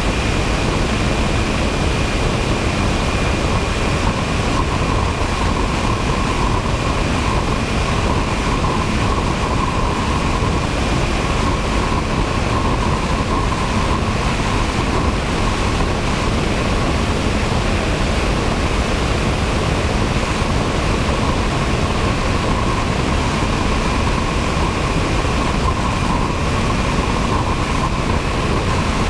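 Radio-controlled model airplane in flight, heard from its onboard camera: a steady rush of wind over the camera with a constant motor whine underneath.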